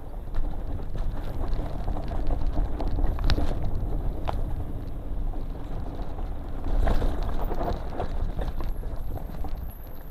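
Mountain bike descending a rocky dirt trail, heard from a camera riding along: a steady rumble of tyres over dirt and rock with constant clattering and knocking from the bike over the bumps, a few harder knocks about three seconds in and again near seven seconds.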